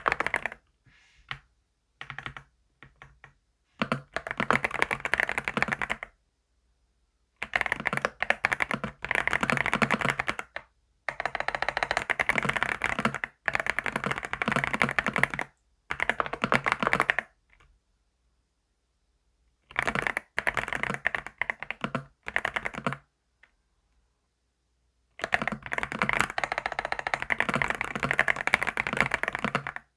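Fast typing on a computer keyboard: dense runs of keystrokes in bursts of a few seconds each, broken by short silent pauses.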